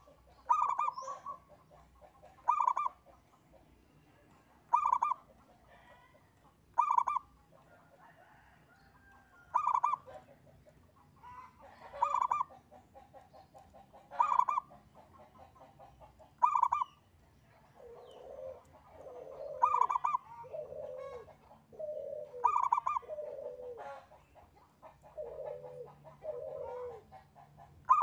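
Zebra dove (perkutut) singing its repeated song: a quick stuttering run of notes, then a loud ringing coo, repeated about every two seconds. About two-thirds of the way in, a softer, lower cooing starts up between the songs, about once a second.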